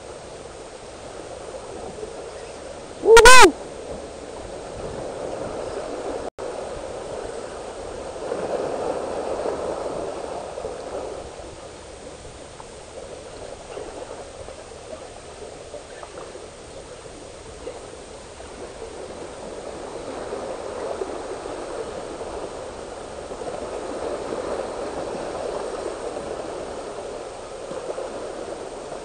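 Sea water washing and foaming over and between the rocks of a boulder shoreline as a steady rush that swells up twice. About three seconds in, one short, loud hooting call cuts across it.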